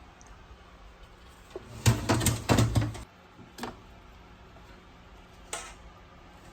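Home freeze dryer being handled: a quick run of knocks and rattles about two seconds in, then two single clicks.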